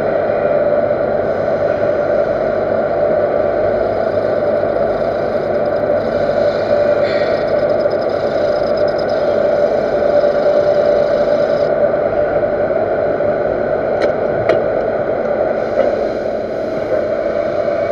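Universal metal lathe running under cut as the cutter turns a taper on an iron workpiece: a steady machine hum with a scraping cutting noise. Two sharp clicks sound about three-quarters of the way through.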